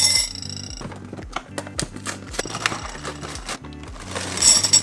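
Background music with a steady bass line, over the rustle of a plastic cereal bag; about four seconds in, Cap'n Crunch Peanut Butter Crunch pieces start pouring and rattling into a bowl, the loudest part.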